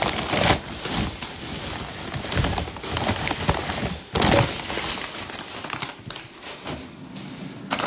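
Rustling and crinkling handling noise close to the phone's microphone, broken by a few sharp knocks, loudest near the start and about four seconds in.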